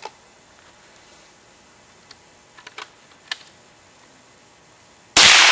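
A few faint clicks, then a single loud rifle shot about five seconds in that rings away over about a second.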